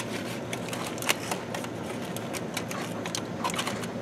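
Aluminium foil crinkling and crackling as hands pull open a foil cooking packet: a continuous run of small irregular crackles, one louder about a second in.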